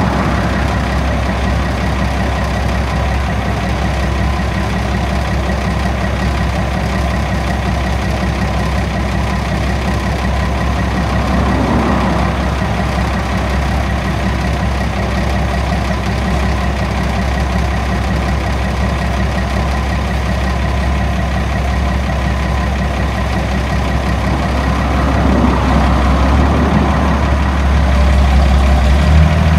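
1965 White truck's engine idling steadily, growing a little louder in the last few seconds.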